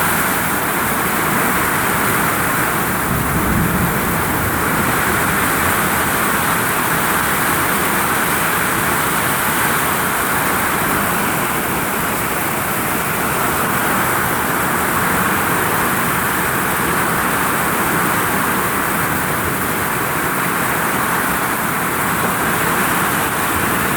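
Heavy rain pouring onto a vinyl roof: a loud, steady, dense hiss that swells slightly now and then.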